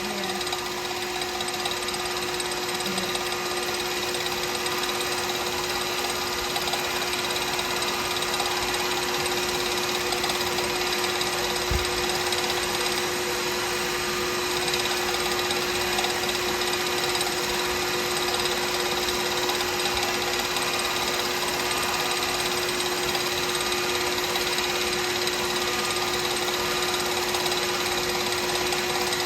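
Wood lathe running steadily at about 3,000 RPM, a constant motor hum with a steady whine, while a resin pen blank spinning on it is wet-sanded.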